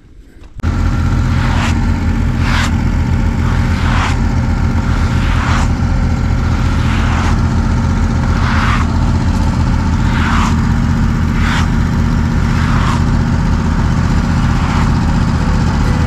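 Wood-Mizer LX150 sawmill's gasoline engine starting up about half a second in, then running steadily as it warms up before sawing.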